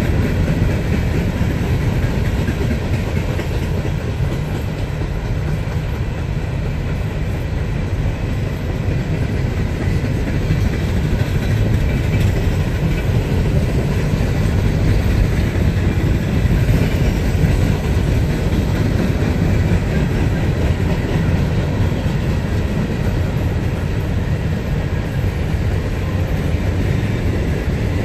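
Empty coal hopper cars rolling past on the rails: a steady low rumble of wheels on track with some clickety-clack.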